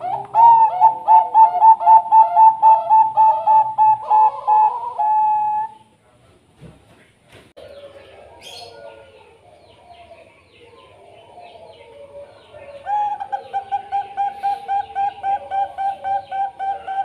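Zebra doves (Bangkok-bred perkutut) singing: a loud, rapid run of short, clipped coos, about four a second, that stops about six seconds in. Softer, irregular cooing follows, and a second rapid run of coos starts about thirteen seconds in.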